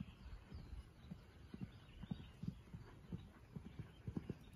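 Faint, dull thuds of a horse's hooves cantering on sand arena footing, several a second in an uneven rhythm.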